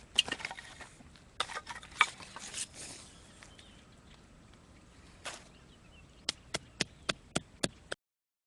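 Campfire of burning wood crackling and snapping: a cluster of sharp pops and knocks in the first few seconds, a lone pop a little after five seconds, then a run of about seven evenly spaced sharp clicks near the end.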